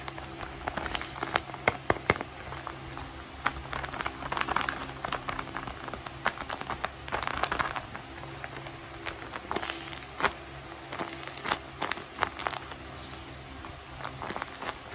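Tape-covered paper squishies crinkling and crackling as hands squeeze, fold and handle them. Many short sharp crackles and clicks, with longer crinkly stretches about four and seven seconds in.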